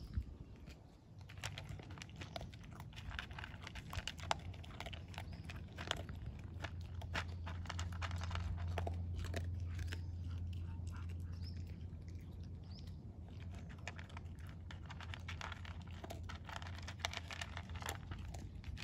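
A dog eating dry kibble from a plastic bowl: many quick, irregular crunches and clicks. Under it runs a steady low hum, strongest around the middle.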